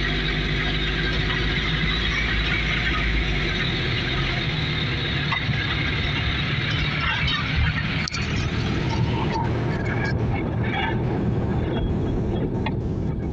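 Car engine and road noise heard from inside the cabin while driving, steady throughout; the higher hiss thins out about two thirds of the way through while the low rumble carries on.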